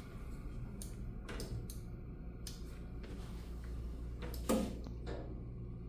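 Scattered clicks and knocks of an X-ray tube head and collimator being handled and moved into position on its stand, the loudest clack about four and a half seconds in, over a steady low hum.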